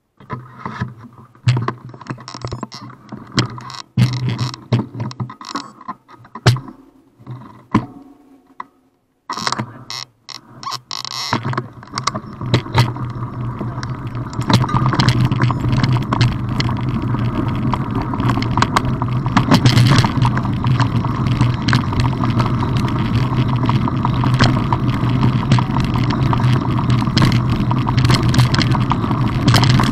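Mountain bikes on a dirt gravel track: scattered clicks and knocks at first as the bikes are handled and set off, then, from about twelve seconds in, a continuous rumble of tyres on gravel with the bike and camera rattling over stones, louder from about fourteen seconds on.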